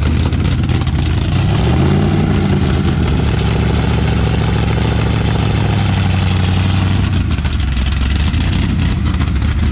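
Sand car's V8 engine running at low speed through open exhaust as the car creeps out of a trailer. The engine speed rises a little about two seconds in, holds steady, then eases off near the end.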